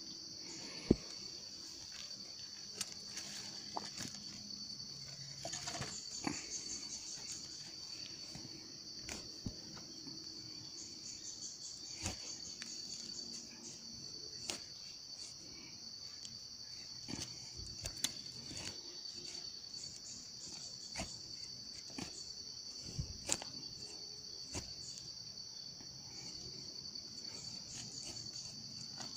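Machete blade striking and digging into the soil in irregular knocks and scrapes, over a steady high-pitched insect chorus.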